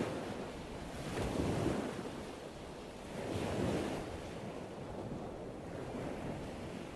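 Ocean surf: waves breaking and washing in, swelling about a second in and again after about three seconds.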